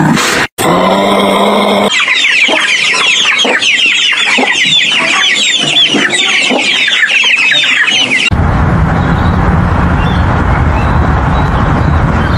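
A flock of hens clucking and cackling, many short calls overlapping, after a second or two of deep animal grunting at the start. At about eight seconds the hens cut off and a steady low insect buzz takes over.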